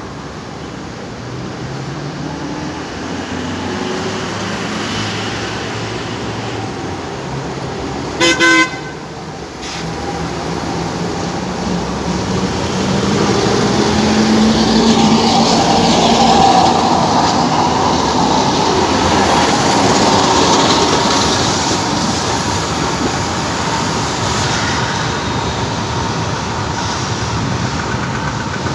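A horn sounds once, a short sharp toot, about eight seconds in. Then an Alexandria Raml tram runs past on its rails, its wheels and motor growing louder to a peak in the middle before slowly fading as it moves away.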